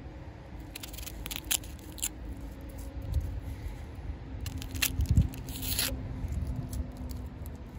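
Dry, papery skin of a red onion crackling and tearing as it is pared off with a pocket knife, in short scattered bursts, the loudest a little after five seconds in. A low rumble runs underneath.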